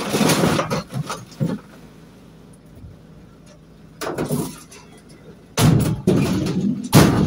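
A boxy appliance set down on a pile of scrap in a van's metal load area with a clatter. Near the end the van's rear doors are swung to, ending in a loud slam.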